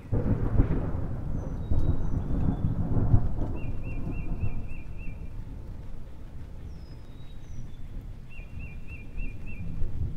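A low rolling thunder rumble that starts suddenly, is loudest for the first few seconds and then slowly fades. A bird chirps in a quick trill twice over it.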